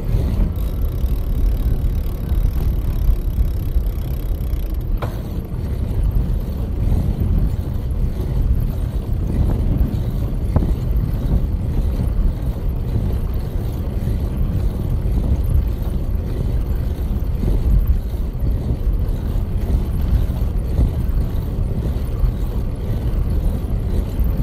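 Steady low rumble of wind buffeting the microphone, with tyre noise, as a bicycle rides along an asphalt road.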